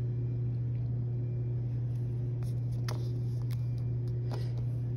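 A steady low electrical-sounding hum, with a few faint taps in the second half.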